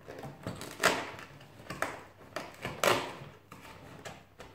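Cardboard advent calendar door being picked at and pried open with fingertips: a few short scrapes and tears of thin card, the loudest about three seconds in.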